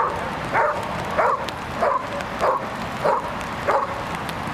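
Young Malinois-type dog barking at a protection-work helper, seven sharp barks at an even pace of about one every 0.6 seconds, as in a hold-and-bark.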